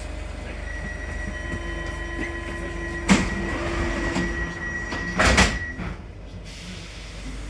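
Inside an MP14 rubber-tyred metro train: steady electric tones over the running hum, with two sharp, loud clunks about two seconds apart, after which the tones stop and it goes quieter.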